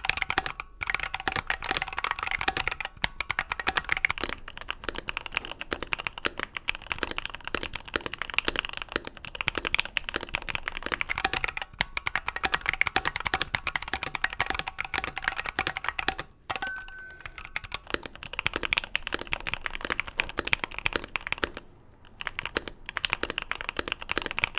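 Keychron Q1 mechanical keyboard being typed on quickly: a dense, continuous clatter of keystrokes, a sound test of the board stock and after modding with Boba U4T and Gateron Milky Black switches. The typing breaks off briefly about two-thirds of the way through.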